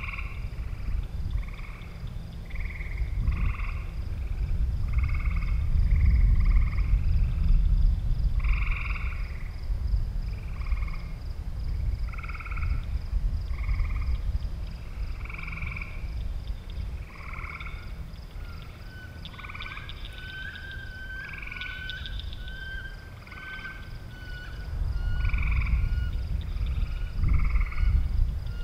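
Frogs croaking in short calls repeated roughly once a second, over a steady high-pitched pulsing trill and a low rumbling noise. A thin warbling call joins in about two-thirds of the way through.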